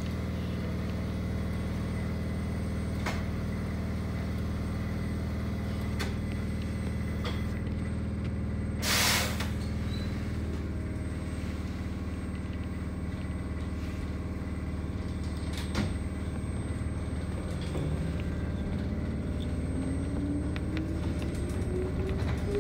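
Konan Railway 7000-series electric train standing with a steady hum from its equipment, a short hiss of compressed air about nine seconds in and a few light clicks. Near the end the train pulls away and the traction motors set up a whine that rises steadily in pitch as it gathers speed.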